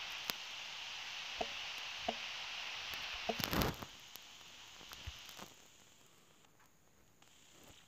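Steady background hiss with a few short, soft ticks of typing on a phone's on-screen keyboard, and a brief rustling burst about three and a half seconds in. The hiss drops away over the second half.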